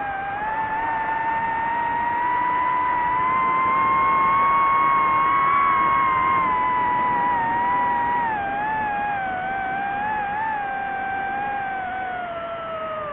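DJI FPV drone's motors and propellers whining steadily. The pitch climbs slowly over the first few seconds, then sinks gradually toward the end as the throttle is eased.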